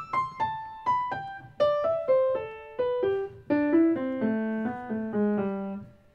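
Background piano music: a melody of single notes, about two a second, stepping downward in pitch and settling on a low note that fades away near the end.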